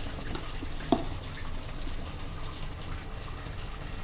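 Uttapam batter sizzling steadily on a hot tawa as it is poured, with a single knock about a second in.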